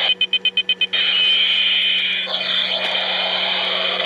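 Battery-operated toy helicopter's electronic sound effect: a loud, steady whirring buzz that stutters in quick pulses, about eight a second, for the first second, then runs on steadily, with a brief sweep in pitch about two seconds in.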